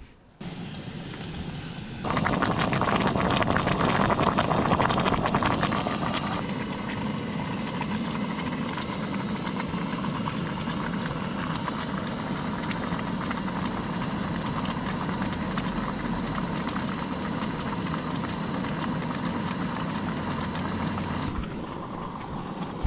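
Wood fire burning in a small portable camp stove: a steady rushing noise with crackles, loudest from about 2 to 6 seconds in, that falls away near the end.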